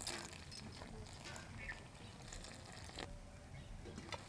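Faint sounds of warm water poured onto flour in a steel bowl, then hands mixing and squeezing the wet dough, with a couple of short knocks near the end.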